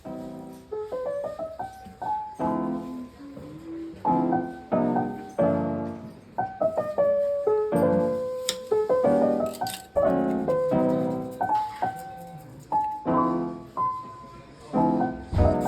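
Background piano music: a gentle melody of single struck notes and chords, each fading after it is played.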